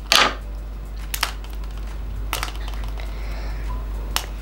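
Handling noise from a plastic surprise egg being worked open: a crackling scrape just after the start, then a few sharp clicks.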